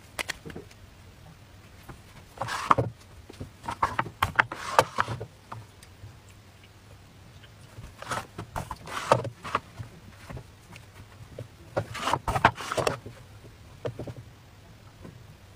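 Clatter and knocks from handling an electric crepe pan and a plastic batter dish, coming in short clusters every few seconds over a low steady hum.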